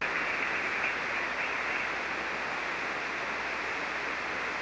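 Shortwave SSB receiver hiss: steady band noise heard through the radio's narrow voice filter, with nothing above about 3 kHz, while the channel is open and no one is talking. It starts abruptly as the other station stops speaking.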